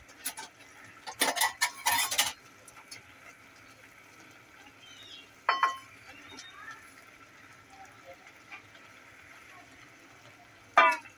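Metal clinks and knocks of kitchen utensils against an aluminium cooking pot in the first couple of seconds, then a single ringing metal clink about five seconds in. A brief pitched call sounds near the end.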